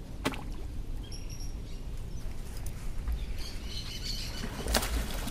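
Birds chirping in short high calls over a low steady rumble, with a sharp click just after the start and a louder one near the end.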